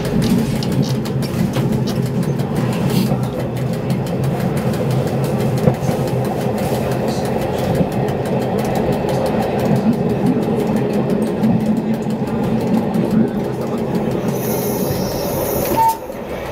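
Interurban tram running along the track, heard from inside the driver's cab: a steady rumble with wheels clicking over the rails. A short high-pitched whine near the end.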